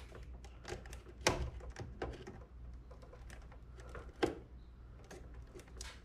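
Pliers clicking and tapping on the plastic harness plug and its retainer clip, a scatter of small irregular clicks with sharper ones about a second in and about four seconds in, as the mini split's fan motor plug is worked loose.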